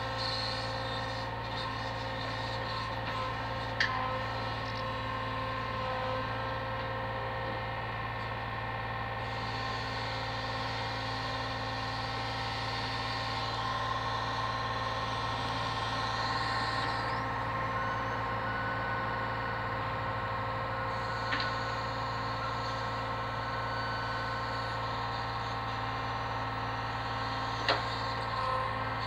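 Brick lorry's engine running steadily to power its truck-mounted crane's hydraulics as the boom swings packs of bricks, a steady mechanical hum with several level tones. A few short sharp knocks, about four seconds in, near twenty-one seconds and near the end.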